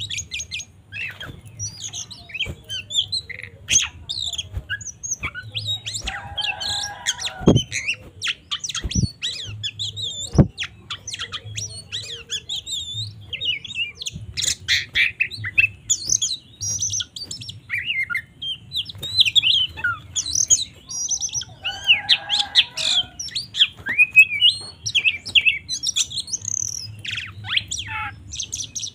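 Oriental magpie-robin (kacer) singing a rapid, varied agitated 'fighting' song of high chirps, whistles and harsh squawks. A lower, harsher call lasting about a second comes twice, about a fifth of the way in and again past two-thirds, and a few sharp knocks sound near the first third.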